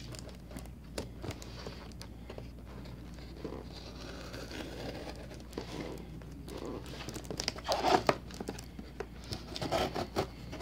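Folding knife cutting and peeling the clear plastic wrap off a cardboard box: plastic film crinkling and tearing, with small scratches at first and louder rustling bursts in the last few seconds.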